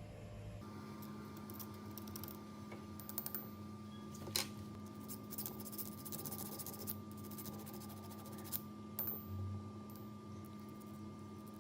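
Scattered light clicks and taps over a steady hum. The loudest single click comes about four seconds in, with a cluster of clicks about nine seconds in.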